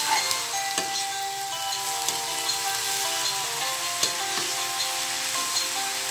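Mung bean sprouts, tofu and vegetables sizzling in a hot wok as a metal spatula stirs and scrapes through them, with a few sharp knocks of the spatula against the pan.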